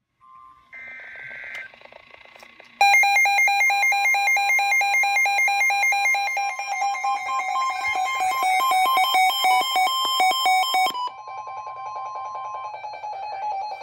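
NOAA weather radios going off for a severe thunderstorm warning. A short burst of data screech comes first. About three seconds in, the radios' loud alert beeping starts, switching rapidly between two pitches over a steady warning alarm tone. Near the end one radio stops and the rest keep beeping more quietly.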